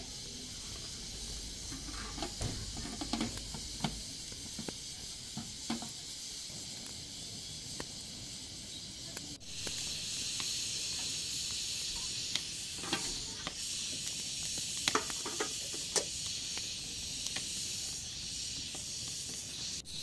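Outdoor wood cooking fire and steaming pot: a steady hiss with scattered crackles and clicks. The hiss grows louder about halfway through.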